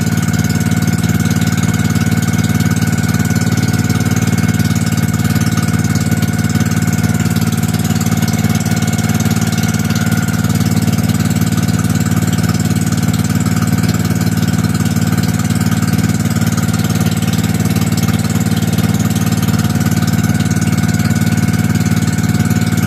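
Motorized outrigger boat (pumpboat) engine running steadily and loudly, heard from on board while under way.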